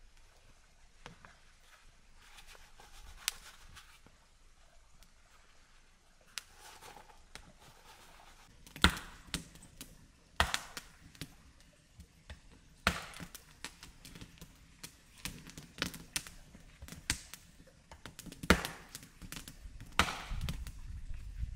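Wood being chopped: a few faint knocks in the first half, then sharp chopping strikes every one to three seconds from about nine seconds in.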